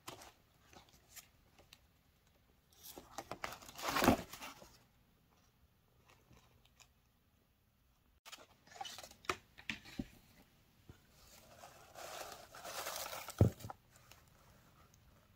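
Paper and card packaging handled: pages and cards rustling and shredded paper filler crinkling in short spells, loudest about four seconds in, with a sharp tap near the end.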